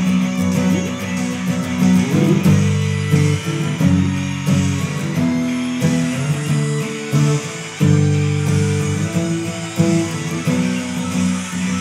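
Music led by guitar, with held notes and chords that change every second or so.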